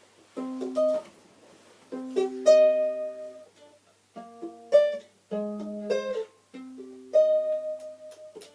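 Instrumental music played on a plucked string instrument: short phrases of plucked chords and single notes that ring on, separated by brief pauses.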